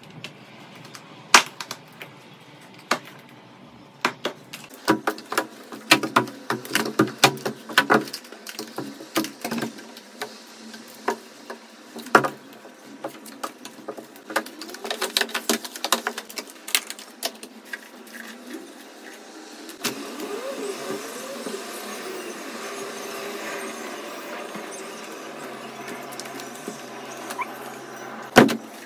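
Household cleaning sounds: a long run of irregular clicks and clatters of hard objects being handled and set down, giving way about twenty seconds in to a steady hissing noise that lasts several seconds, with one sharp knock near the end.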